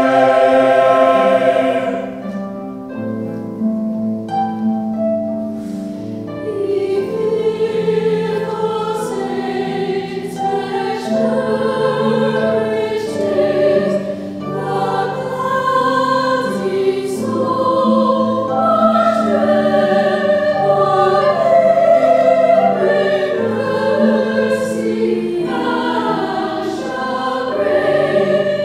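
Mixed choir singing with harp accompaniment, sustained chords shifting from note to note. The sound drops about two seconds in, then builds again.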